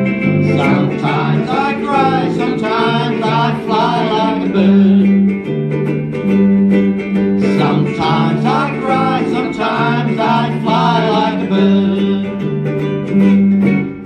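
Live ukulele and voice performance: ukuleles strummed while voices sing with vibrato, over steady low notes held about a second each.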